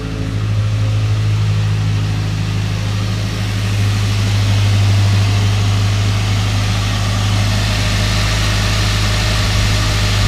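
A 2007 Ford Ranger's 2.3-litre four-cylinder engine idling steadily and smoothly, with no rough idle, running on a freshly fitted ignition coil pack and spark plug wires.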